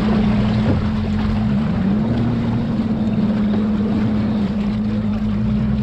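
Motorboat engine running steadily under a hiss of wind and water, its pitch rising briefly about two seconds in.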